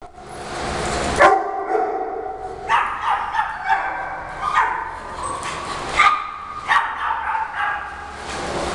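Dogs barking and yapping, short sharp barks every second or so, the loudest about a second in.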